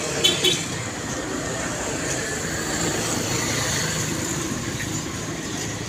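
Motor vehicle engine and road noise running steadily, swelling slightly and easing off as if a vehicle passes. Two short high-pitched squeaks just after the start.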